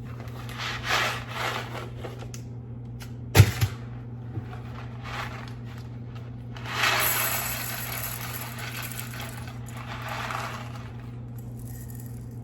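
Kitchen handling sounds while preparing microwave macaroni: brief rustling near the start, a sharp clunk of a dish or container being set down about three seconds in, then a noisy rush lasting a few seconds that fades away, over a steady low hum.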